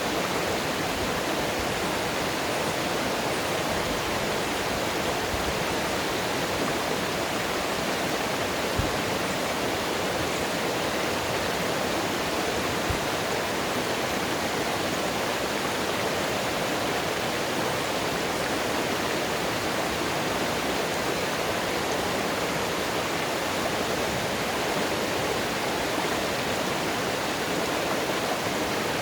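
Steady, unbroken rush of flowing mountain water.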